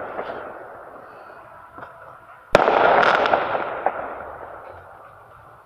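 An aerial firework bursts with one sharp bang about two and a half seconds in, followed by a loud noisy tail that fades away over about two seconds. Before it, the tail of an earlier burst dies down.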